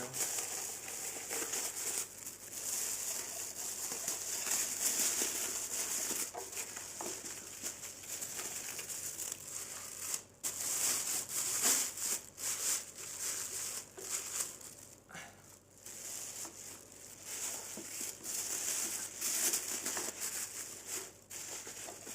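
Plastic wrapping crinkling and rustling as it is pulled off a newly unboxed sewing machine, in bursts with a few short pauses.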